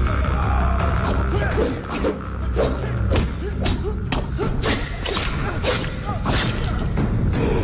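Movie fight sound effects: a rapid run of punch and blow impacts, about two a second, over a low, tense film score.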